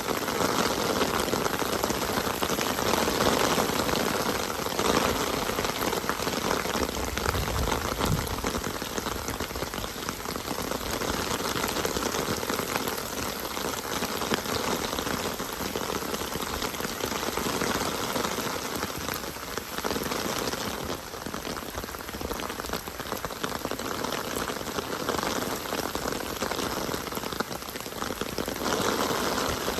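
Steady rain falling in a dense, even patter.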